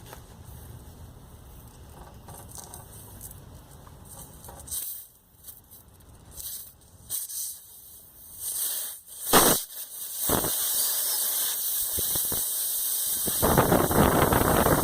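Compressed air hissing out of a punctured car tire as a rasp tool is worked in and out of the hole. It comes in short, irregular bursts at first, then becomes a steady hiss that grows louder near the end.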